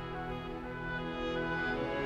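Background music: slow orchestral instrumental with sustained horn- and string-like chords, changing chord near the end.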